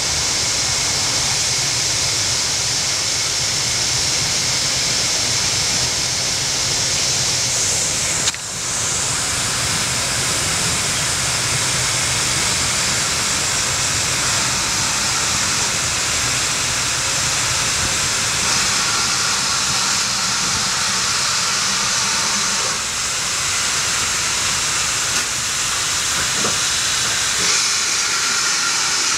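Steam locomotive L150, a GWR pannier tank, letting off a loud, steady hiss of steam.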